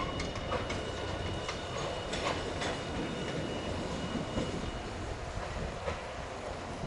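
Hiroshima Electric Railway streetcar rolling along the track, with a steady rumble and irregular clicks and clacks from the wheels over rail joints and points. A faint high whine fades out about five seconds in.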